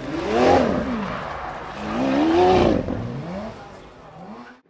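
Lamborghini Centenario Roadster's naturally aspirated 6.5-litre V12 being revved: two loud throttle blips that rise in pitch and fall back, then a smaller one. The sound fades out near the end.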